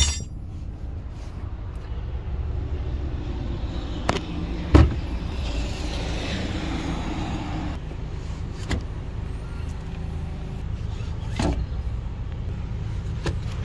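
Handling noises in a small SUV's cargo area: scattered knocks, and a louder thump about five seconds in as the hinged cargo floor panel over the spare-tire well is lowered shut, over a steady low rumble.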